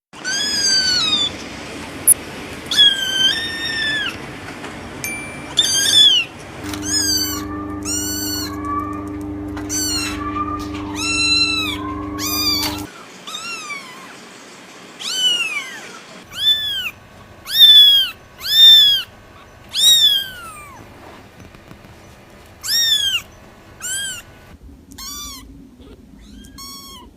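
Kittens meowing over and over: short, high-pitched mews that rise and fall, some in quick runs. A steady low hum sits under the calls for several seconds in the middle.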